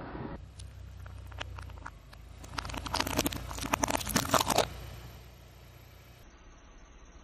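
A brittle white shell cracking and crunching under a slowly rolling car tyre: a few scattered cracks, then a dense run of loud snaps for about two seconds that dies away near the end.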